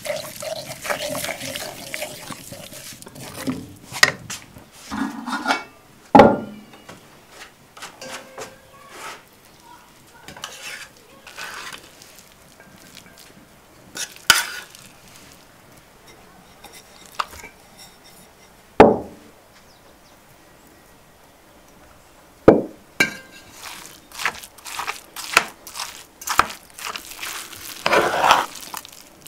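Pots, dishes and utensils being handled while cooking: a spoon stirring and tapping in a pot, with scattered clinks and four sharp knocks spread through, and a busy run of clatter near the end.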